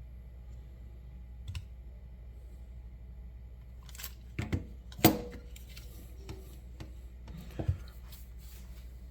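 Loose hardware being handled, a few separate sharp knocks and clicks of hard parts set down or knocked together. The loudest comes about five seconds in and rings briefly.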